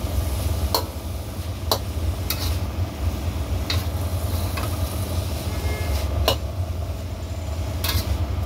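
A long metal spatula stirring grated coconut and spice paste in a carbon-steel wok, scraping and giving sharp clinks against the metal about once a second, over a steady low hum.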